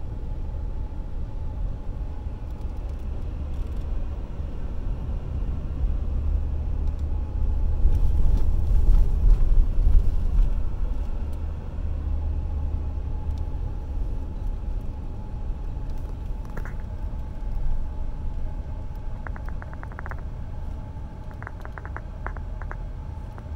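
Low rumble of a car's engine and tyres heard from inside the cabin while driving, swelling for a few seconds in the middle and easing off toward the end. A few short bursts of quick light clicking come in over the last several seconds.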